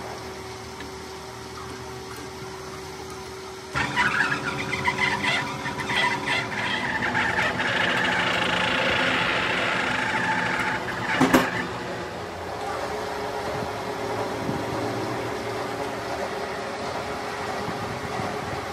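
Irregular metal-on-metal scraping and clanking as a starter motor's end housing is clamped into a lathe's jaw chuck, starting suddenly a few seconds in. A sharp clack comes about eleven seconds in, then a steady machine hum.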